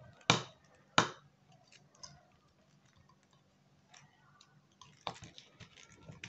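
Two sharp clicks about a third of a second and a second in, then faint scattered taps and a few more clicks near the end, from a glue pot and brush being handled on a tabletop.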